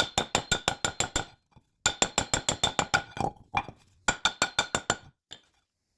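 A hammer tapping rapidly on a steel brake rotor, about seven blows a second in three runs of a second or so, each blow ringing metallically. The rotor is rusted fast to the hub and not budging.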